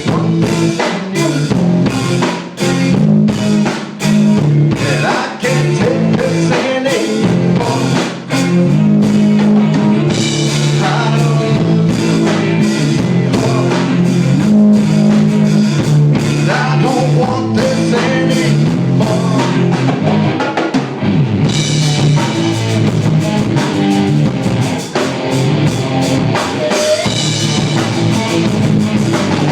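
Instrumental section of a rock song: distorted electric guitars, bass and a drum kit playing steadily with no vocals.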